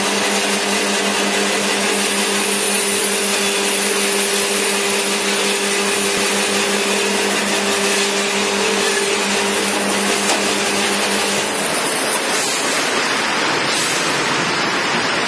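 Electric band-type bone saw running with a steady motor hum and whirring noise. Near the end the hum fades under a rougher, harsher noise.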